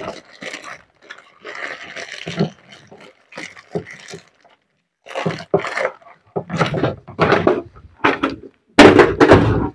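Hands rummaging through a metal parts box, giving irregular clinks, scrapes and knocks of small metal parts. Near the end comes a louder clatter as the box's metal lid is handled.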